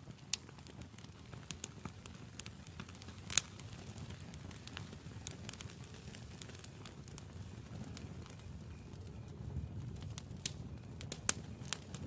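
Wood campfire burning: a low steady rumble of flames with irregular sharp crackles and pops, the loudest pop about three and a half seconds in and a cluster of pops near the end.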